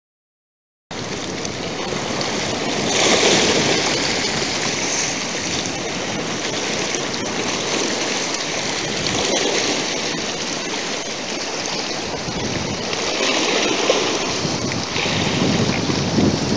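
Wind and choppy estuary water lapping, a steady rushing noise that starts about a second in and swells a little twice.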